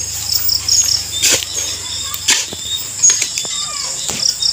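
A long-handled digging bar jabbed down into a dug hole, giving sharp knocks about once a second as it strikes something hard, which the diggers take for stone. Steady high chirping of insects runs underneath.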